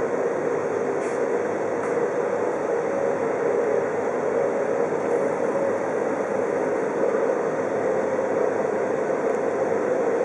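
Steady, even rushing noise of moving air, holding the same level with no rhythm or pauses.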